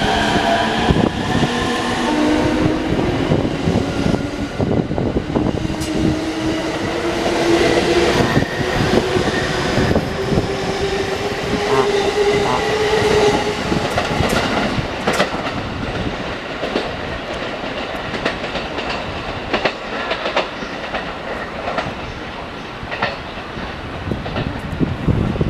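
E231 series suburban electric train, an equipment-renewed unit, pulling away: its inverter and traction motors whine in several tones that rise in pitch for about the first thirteen seconds as it accelerates. Wheels clack over rail joints as it gathers speed.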